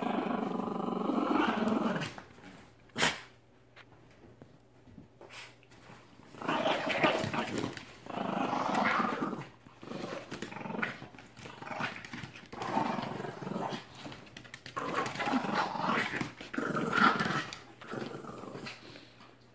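A dog growling in repeated bouts of a few seconds each while tugging on a toy: play growling during tug-of-war.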